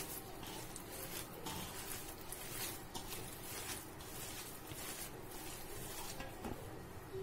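Bare hands squeezing and mixing soaked sago pearls with mashed boiled potato in a steel bowl: soft, irregular squishing and rustling strokes.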